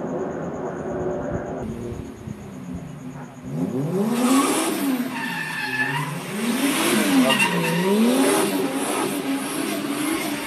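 A drifting car's engine revving up and down in repeated sweeps while its tyres squeal, starting about four seconds in after a quieter stretch.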